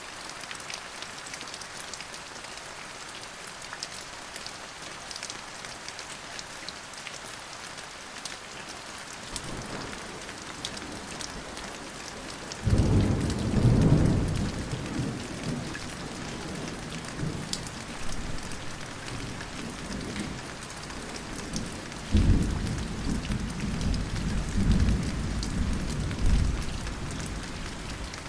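Steady rain falling through a thunderstorm. A low rumble of thunder builds from about ten seconds in, then a loud thunderclap breaks suddenly and rumbles for several seconds; a second loud peal of thunder rumbles on for about five seconds near the end.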